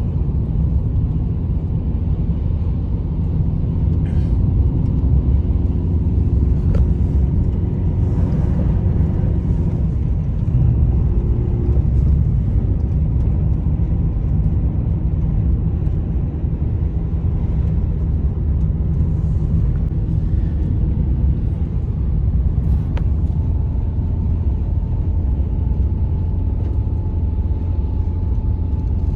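Strong blizzard wind blowing steadily, a loud low rumble of wind buffeting the microphone.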